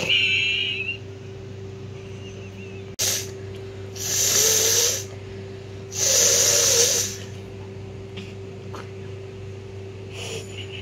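A woman blowing her nose hard: a short sharp snort, then two long forceful blows about two seconds apart, each about a second of rushing air with a nasal honk, over a steady low hum.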